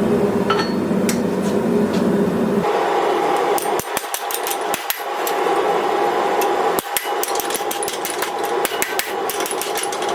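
Hammer blows on hot steel at an anvil while forging: a quick, irregular run of sharp metal strikes starting about three seconds in, over a steady rushing background noise.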